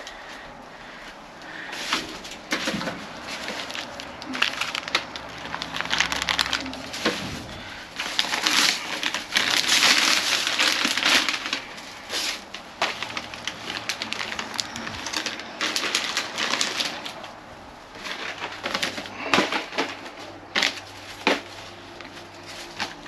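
Plastic bags and snack packaging rustling and crinkling, with cardboard cracker boxes being picked up, shifted and knocked together as the discarded food is rummaged through. Irregular crackling, busiest about ten seconds in.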